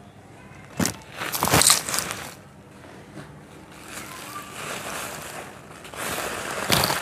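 Dry moulded yellow sand, super crunchy, crunched and crumbled between bare hands, with loose grains pouring and trickling onto a sand heap. Crisp crunches come about a second in and again around a second and a half, a softer crumbling rustle follows, and louder crunching comes near the end.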